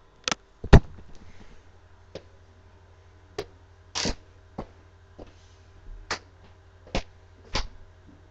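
A string of about nine short, sharp knocks and clicks with quiet gaps between them, the loudest about a second in. These are handling noises: the camera being set down, then someone stepping up to a tabletop mini pool table and setting the cue ball on it.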